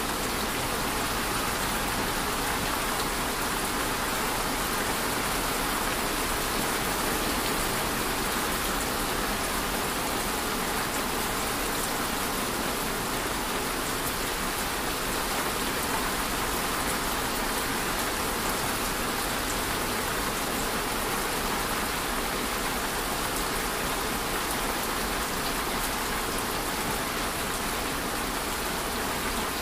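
Steady, even rainfall with no let-up or change.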